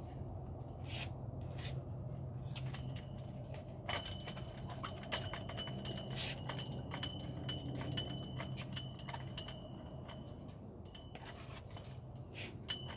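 Irregular light clicks, taps and scrapes from hands working along the edge of a new windshield on its stand, over a steady low hum.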